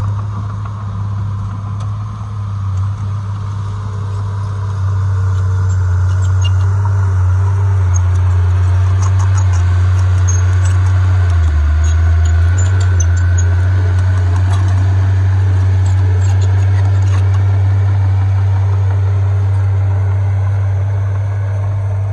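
Heavy diesel engine of earthmoving machinery running with a steady low drone. It gets louder about five seconds in as it comes under load. Faint clicks are heard in the middle.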